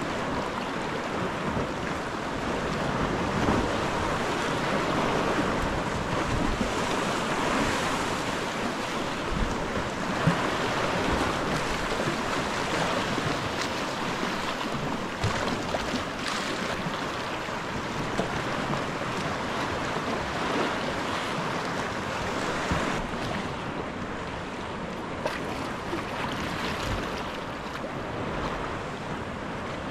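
Steady rush of sea waves and choppy water breaking and sloshing against rock ledges around the kayaks, with wind on the microphone and occasional small splashes.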